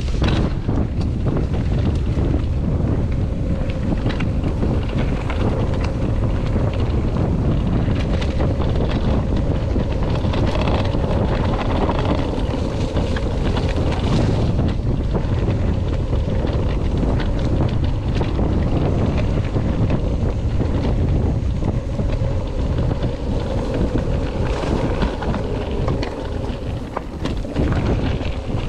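Wind buffeting the microphone: a steady, loud rumble that runs without a break.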